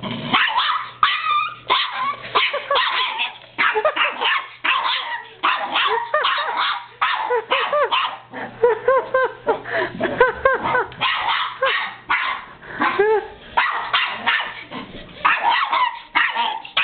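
Yorkshire terrier barking over and over at a remote-controlled toy rat: rapid, high-pitched yapping barks and yips, two to three a second, without a break.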